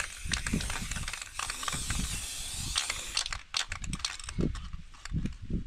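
Aerosol spray-paint can hissing as it sprays, cutting off about three seconds in, then a run of quick rattling clicks.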